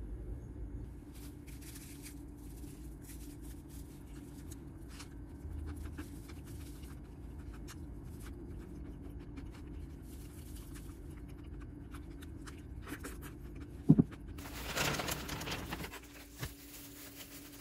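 Light handling noises: faint rustling and small ticks over a steady low hum, a single sharp knock about fourteen seconds in, then a second or so of louder rustling.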